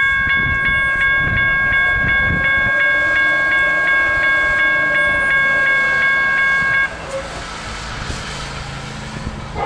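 Railroad grade-crossing bell ringing, a steady ringing tone struck about three times a second, over the low rumble of a train. The bell cuts off abruptly about seven seconds in, leaving the quieter rumble.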